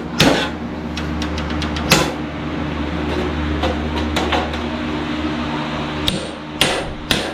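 A steady machine hum, like an electric motor running, starts just after the beginning and cuts off about six seconds in. Scattered knocks and clicks of metal tools sound over it, and a few sharp bangs come near the end.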